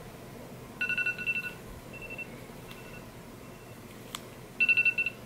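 Electronic beeping: two short bursts of rapid, high-pitched pulsed beeps, one about a second in and one near the end, with fainter single beeps between them and a click just before the second burst.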